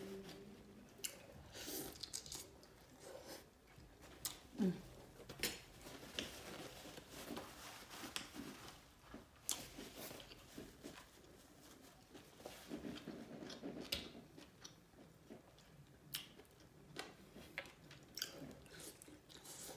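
Close-miked chewing of deshelled seafood boil (shrimp and lobster tail), with many short mouth and lip clicks and a brief low hum about four and a half seconds in.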